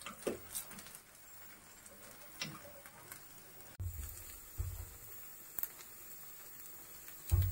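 Batter dumplings sizzling in oil in a paniyaram pan, a light steady crackle. In the first few seconds a metal spoon clicks and scrapes against the pan as the dumplings are turned, and later a few dull bumps come through.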